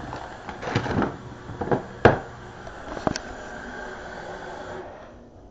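Kitchen faucet running water into the sink in a steady rush, with a few sharp knocks and clatters about a second, two seconds and three seconds in. The water shuts off shortly before the end.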